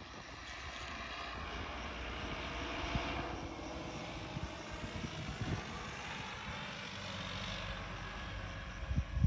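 Propeller aircraft engine passing overhead, its drone swelling and fading twice, with wind rumbling on the microphone and a sharp knock at the very end.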